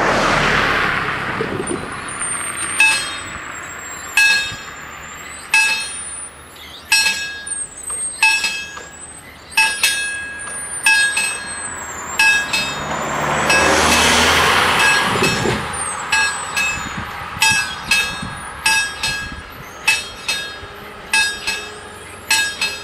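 Level-crossing warning bells ringing in repeated strikes, starting about three seconds in, the strokes coming closer together later on. A road vehicle passes near the start and another in the middle.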